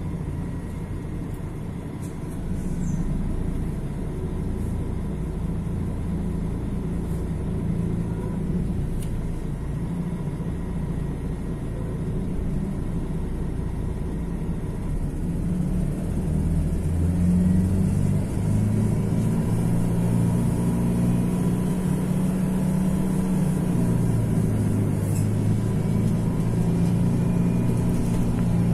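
Mercedes-Benz OM 457 LA inline-six diesel engine of a bus running under way: a steady low drone that grows louder, with its note shifting, about two-thirds of the way in and again near the end.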